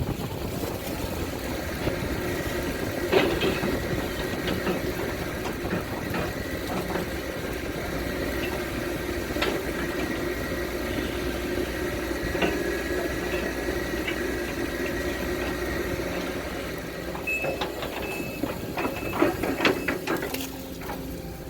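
Case CX210D excavator's diesel engine running steadily during ditch digging, with occasional sharp clanks and knocks and a cluster of them near the end.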